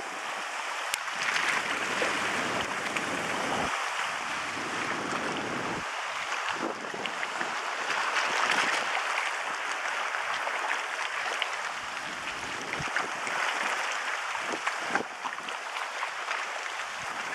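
Wind and choppy lagoon waves: a steady rushing wash that swells and eases every few seconds, with wind gusts rumbling on the microphone.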